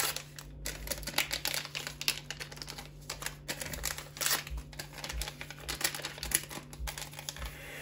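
Small paper sachets of baking powder being handled and shaken out over a mixing bowl: crisp paper rustling and crinkling with many irregular light clicks and taps.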